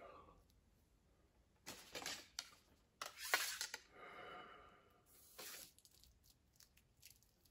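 Faint rustling and scraping of a bow and arrow being handled, in a few short bursts, the loudest about three seconds in.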